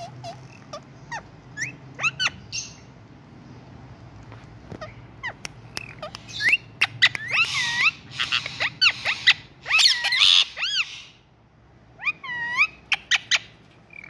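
Indian ringneck parakeets chirping and squawking, with scattered sharp clicks. The calls come thick and harsh in the middle, then a short run of rising-and-falling chirps near the end.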